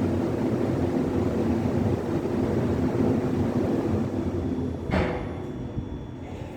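Kone MonoSpace elevator car travelling in its shaft: a steady low rumble with a single clunk about five seconds in, after which the rumble gets quieter.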